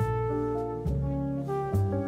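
Background music: held chords over a bass line, moving to a new chord about once a second.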